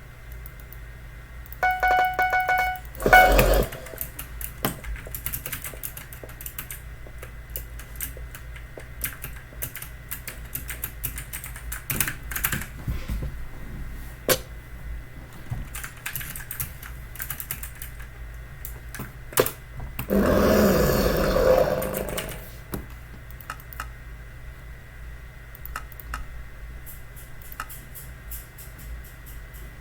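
Typing on a Logitech mechanical keyboard with clicky blue-style switches: irregular sharp key clicks throughout. A short pitched electronic tone sounds about two seconds in, followed by a loud burst, and there is a longer, louder burst of noise about two-thirds of the way through.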